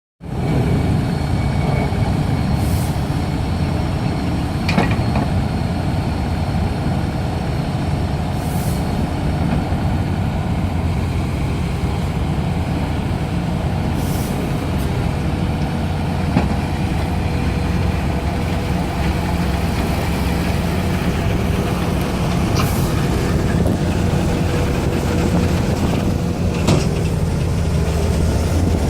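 Daedong DPD850T hydraulic vibratory pile driver on a Volvo EC480 excavator, driving a steel sheet pile: a loud, steady, low hum, with a few short sharp sounds now and then.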